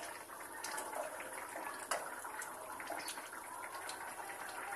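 Potato curry simmering and bubbling in a pan on a gas stove while a spatula stirs it, with scattered small pops and clicks and one sharper click about two seconds in.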